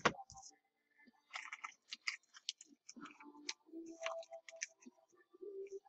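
Trading cards being slid into plastic penny sleeves and rigid top loaders: irregular light plastic crinkling, scraping and small clicks.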